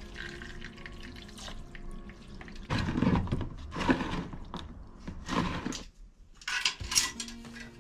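Old diesel fuel poured and sloshed over a wire-mesh filter element in a plastic basin as it is washed, in several loud surges of splashing and dripping. Near the end come a few sharp clicks.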